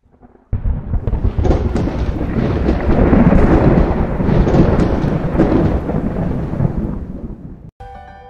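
Thunder rumble sound effect that starts suddenly about half a second in, swells, then slowly fades before cutting off near the end. Music with steady tones starts just after the cut.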